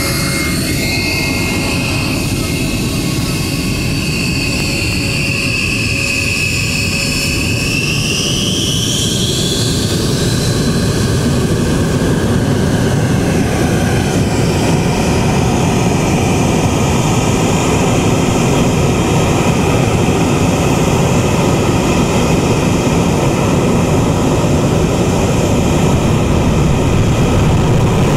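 B-1B Lancer's four General Electric F101 afterburning turbofans running up for takeoff. A high whine rises in pitch about eight seconds in. From about fourteen seconds a broader rushing jet noise takes over and swells steadily louder as the bomber begins its takeoff roll under full power.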